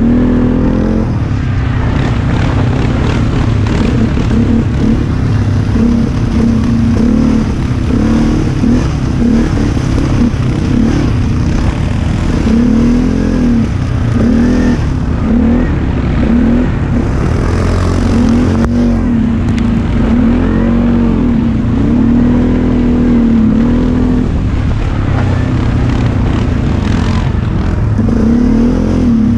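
ATV engine running under way, its pitch rising and falling again and again as the throttle is opened and eased off.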